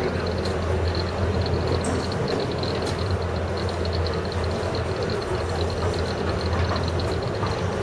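A 15-inch gauge miniature train running steadily, heard from a passenger carriage: wheels on rail over the diesel locomotive's 2-litre Perkins engine, a steady low hum with a faint, fast high pulsing on top.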